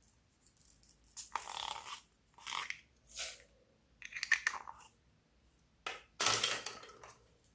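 Slime being worked and squished, in about six separate short wet, crackly bursts with quiet gaps between them. The longest and loudest burst comes near the end.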